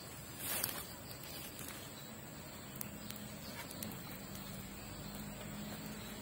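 Steady high-pitched insect drone over quiet forest ambience, with a brief rustle about half a second in and a few light clicks later. A faint low hum comes in partway through.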